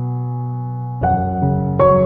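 Background music: a held chord slowly fading, then new notes struck about a second in and twice more soon after.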